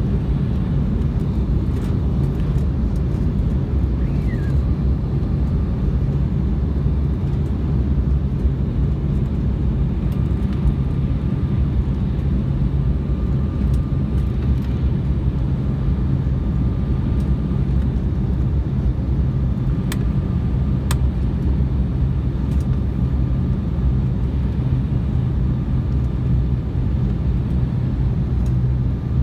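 Steady low drone of an airliner's engines and airflow heard from inside the passenger cabin, with a couple of sharp clicks about twenty seconds in.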